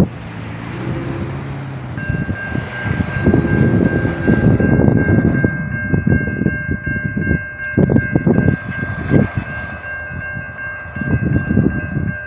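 A train passing close by: a heavy rumble broken by irregular clattering knocks of wheels on rail. About two seconds in, a steady high-pitched tone starts and holds.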